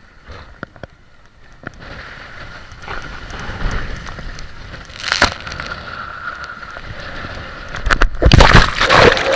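Inflatable tube rider sliding down a water slide, heard from a camera on the rider: rushing water and air noise on the microphone that builds up, with a sharp surge about five seconds in. Near the end the tube hits the pool with a loud splash and churning water.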